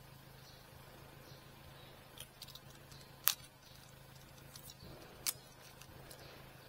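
A few short, sharp clicks, about four spread out, over a faint low steady hum.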